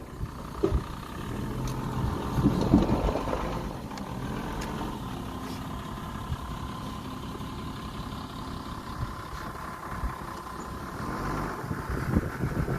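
An engine running steadily with a low hum, with some gusty noise in the first few seconds.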